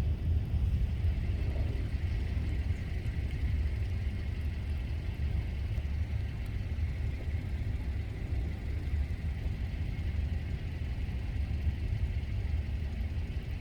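Steady, unsteady-edged low rumble throughout, with a faint even hiss of falling rain over it.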